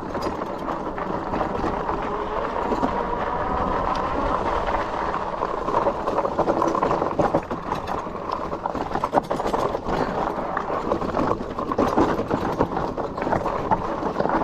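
Fat e-bike tyres rolling over a rocky gravel trail, with the bike rattling and clattering over stones and bumps. A faint motor whine rises slightly over the first few seconds.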